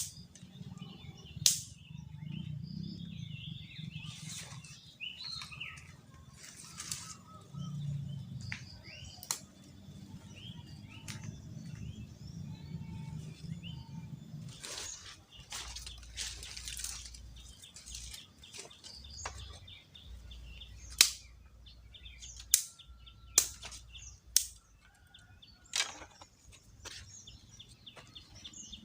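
Birds chirping, mostly in the first half, over a low rumble that stops about halfway through. Sharp clicks or knocks come once early on and then in a run of about five near the end, louder than the birdsong.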